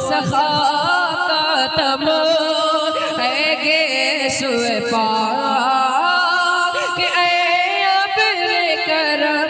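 A male voice singing an Urdu naat in long, ornamented melodic lines that waver and glide in pitch.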